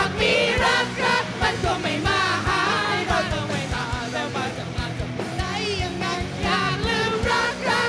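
Live band playing a rock song, with several singers singing into microphones over a steady drum beat.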